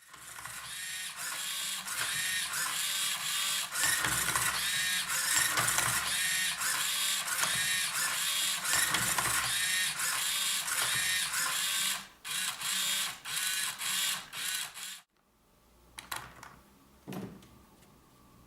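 Small hobby servo motors of a 3D-printed Rubik's cube robot making quick repeated moves, each a short whine that rises and falls, about two a second. They stop suddenly about fifteen seconds in, followed by a couple of faint knocks.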